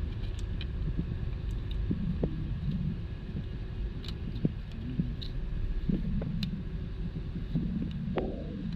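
Light metallic clicks and taps, scattered and irregular, from a timing-chain guide and chain being fitted by hand on an engine's exhaust side, over a steady low rumble.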